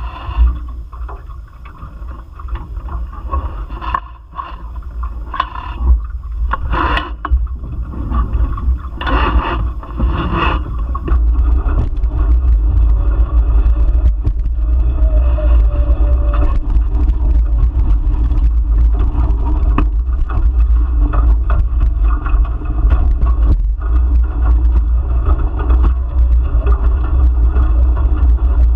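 Wind buffeting a camera microphone on a sailing Nacra Infusion F18 catamaran, with water rushing and splashing past the hulls. In the first ten seconds or so there are scattered splashes. After that the wind rumble and water noise become loud and steady.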